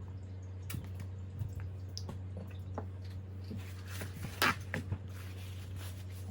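A baby eating: small wet mouth clicks and smacks while chewing soft food, with one louder smack about four and a half seconds in, over a steady low hum.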